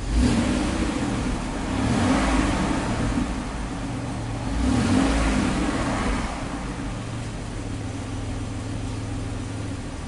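2008 Chevy Equinox engine revved twice from idle, swelling and falling back about two and five seconds in, then settling to a steady idle. Heard from inside the cabin.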